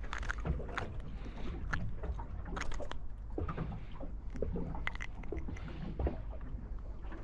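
Water lapping and slapping against the hull of a small boat, with scattered small knocks and splashes over a steady low rumble.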